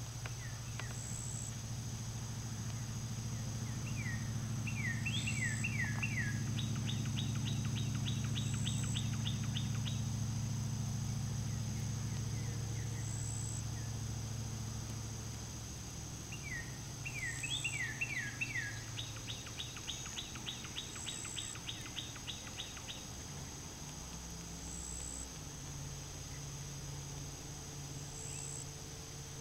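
A songbird sings the same song twice, a few quick downward-slurred notes followed by a long rapid trill, over a steady high insect drone with regular short chirps. A low steady hum runs underneath, strongest in the first half.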